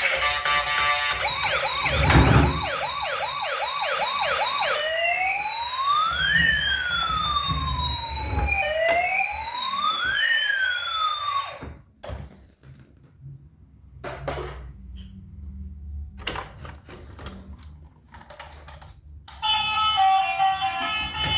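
Electronic siren, loud, going through its patterns: a rapid pulsing tone, then after a thump about two seconds in a fast yelp, then a slow wail that rises and falls twice and cuts off suddenly about halfway through. Quieter clicks and knocks follow, and music starts near the end.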